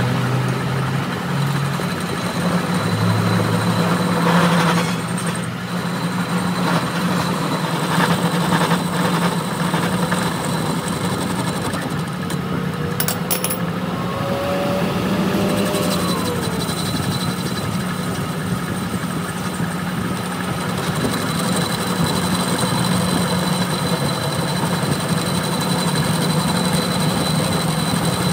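Metal lathe running steadily while its cutting tool turns down the welded joint on an axle shaft, machining the weld flush. A few sharp clicks come about halfway through.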